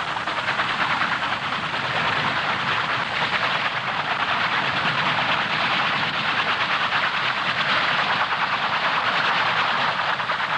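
Fairey Rotodyne's rotor tip jets running, lit for vertical flight as it hovers and comes down: a loud, steady, harsh rushing noise with a fast flutter from the turning rotor.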